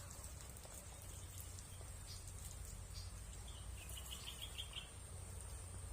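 Steady high-pitched drone of insects such as crickets, with a quick run of about six chirps about three and a half seconds in.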